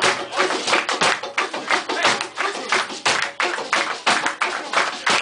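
A group of people clapping hands in a fast, steady rhythm.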